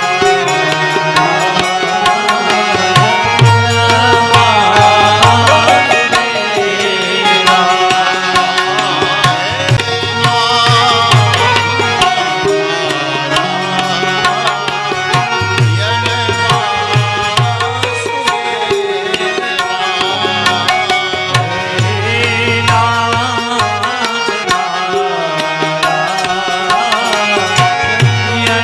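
Indian devotional music: tabla drumming under a wavering melodic line.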